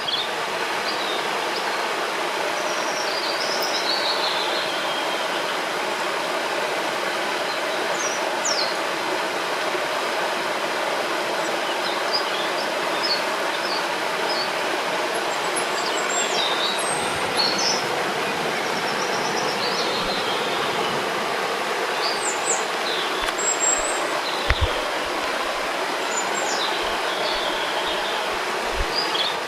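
Rushing river water, a steady loud hiss, with small birds chirping and whistling on and off over it.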